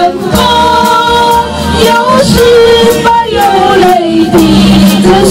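Karaoke backing track of a Mandarin pop ballad playing loudly through large loudspeakers: a melody of held notes over a steady beat.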